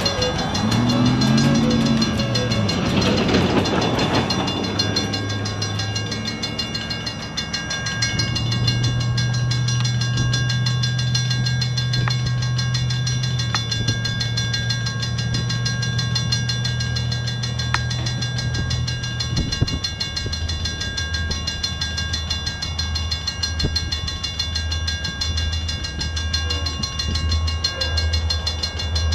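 Union Pacific diesel-led intermodal freight train approaching on the line, its locomotives running with a low steady drone, which about two-thirds of the way in gives way to a low, evenly pulsing rumble.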